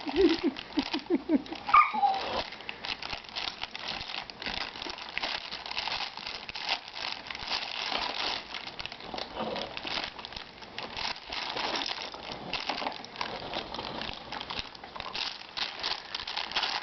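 Plastic baby-wipes package crinkling continuously as a baby grabs and squeezes it, with a brief high squeal about two seconds in.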